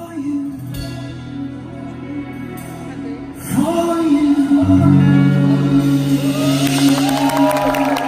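Live male vocalist with a microphone, over sustained backing chords: a short sung phrase, then a long held note. In the last couple of seconds the crowd starts clapping and whistling.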